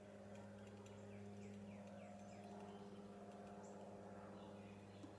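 Near silence: room tone with a steady low hum, and a run of faint quick falling chirps about a second in.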